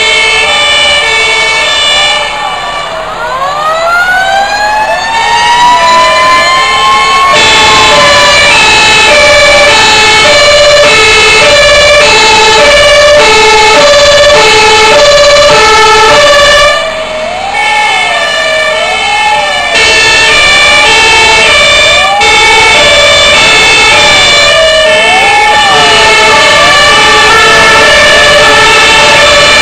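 Several fire engine sirens sound at once as the trucks drive by. One is a wailing siren rising and falling about once a second. A few seconds in, another siren winds up in a long rising glide, and for about ten seconds in the middle a two-tone horn alternates between two notes.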